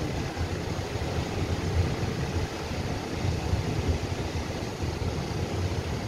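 Surf washing onto the beach in a steady rush, with wind buffeting the microphone in an uneven low rumble.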